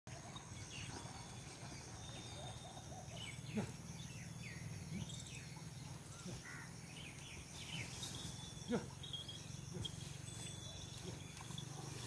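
Rural field ambience: scattered bird chirps over a steady background hum, broken by two short knocks about three and a half and nine seconds in.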